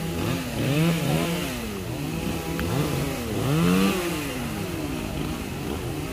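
Two-stroke chainsaw cutting a tree branch, its engine revving up and dropping back again and again. At times a second saw seems to run at a different speed.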